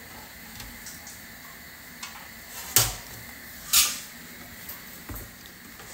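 Brief kitchen handling noises over quiet room tone: a sharp click a little under three seconds in, a louder short noise about a second later, and a soft knock near the end.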